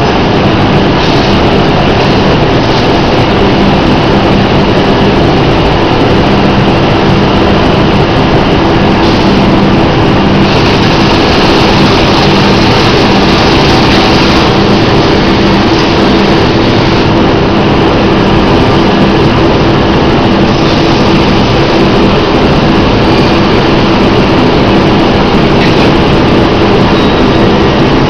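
Loud, steady industrial machinery running, a constant drone with a steady low hum and no pauses, typical of a feed bagging line at work.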